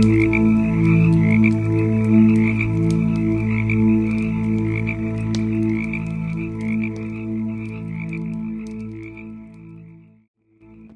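Wood fire crackling with sharp pops, over a dense chorus of low tones that swell and fade slowly and a high warbling trill. Everything cuts out for about half a second near the end, then resumes.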